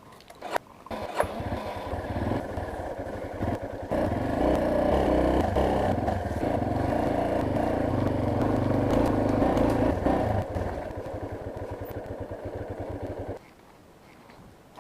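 Yamaha Serow trail motorcycle's single-cylinder engine running after a couple of clicks near the start. It gets louder from about four seconds in, drops back at about ten seconds, and stops suddenly near the end.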